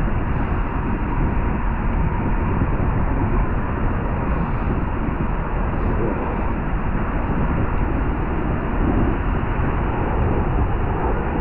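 Steady rushing wind noise on a bicycle rider's microphone while riding, an even low-heavy rush with no breaks.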